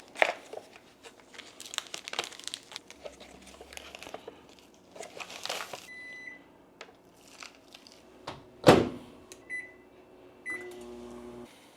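Packaging rustling and clicking, with one loud knock, then a microwave oven's keypad beeping a few times and the oven starting to run with a steady hum near the end.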